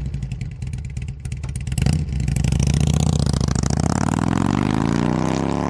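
Motorcycle engine running with a rapid pulsing beat. It gets louder about two seconds in, and its pitch climbs steadily through the second half as it revs up.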